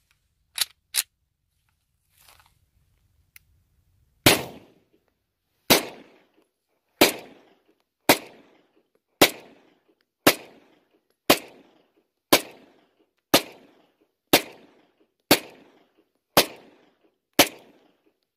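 Grand Power X-Calibur 9mm pistol: two sharp metallic clicks as the slide is racked, then, about four seconds in, slow fire of thirteen single shots about a second apart, each with a short echo.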